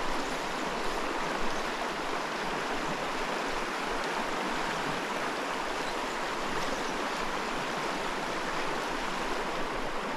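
Fast, shallow mountain creek rushing steadily over rocks in a riffle.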